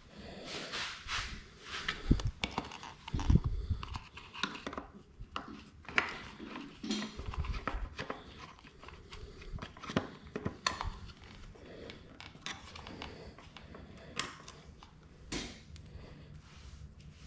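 Hand work with a screwdriver on the bike's frame and battery bay: scattered clicks, scrapes and rubbing of the tool, screws and hands on plastic and metal parts, with a few dull thumps about two and three seconds in.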